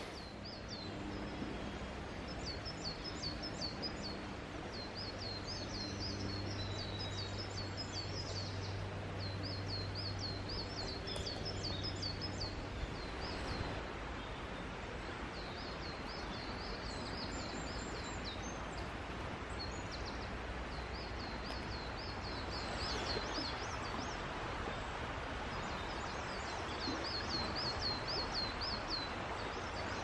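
Woodland birdsong in early spring: short, rapid, high trilled phrases repeating every few seconds over a steady background hiss. A low distant hum comes and goes in the first half.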